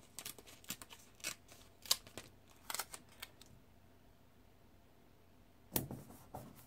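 Paper stickers being handled and pressed down onto a planner page by hand. There are soft, scattered clicks and crinkles for the first three seconds or so, a quiet spell, then one louder rustle near the end.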